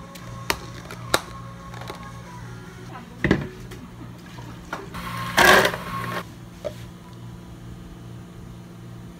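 Drink-making sounds at a cafe counter over soft background music. There are a few sharp clicks and knocks from plastic cups and a blender jar being handled, and a louder clatter of about a second just past the middle.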